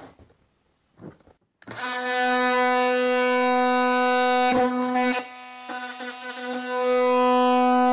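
Cordless oscillating multi-tool starting up about two seconds in and running at a steady, buzzing pitch as its blade cuts into a hard plastic tool crate. The sound weakens briefly a little past halfway.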